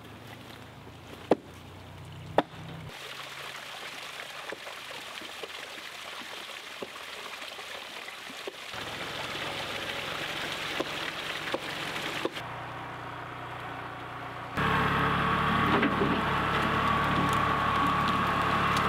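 Two sharp knocks, then the steady trickle of a small creek, and for the last few seconds the louder steady running of a compact tractor's engine as its front loader drags a log.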